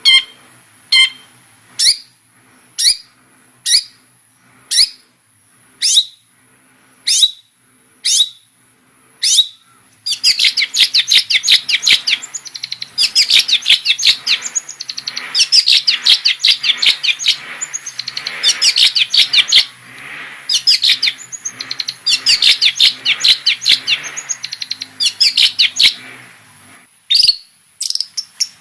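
Long-tailed shrike (cendet) singing: first a series of sharp single calls about one a second, then, about a third of the way in, a fast, continuous chattering run of high notes that fills most of the rest, ending with a short burst.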